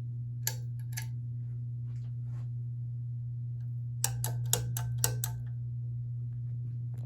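Steady electrical hum from a powered-up Emerson Casablanca Classic ceiling fan, with scattered sharp clicks and a quick run of about seven clicks a little past four seconds in.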